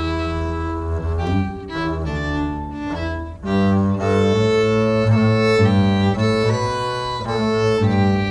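Fiddle and upright bass playing a slow folk tune without singing: the fiddle bows sustained notes over a low bass line.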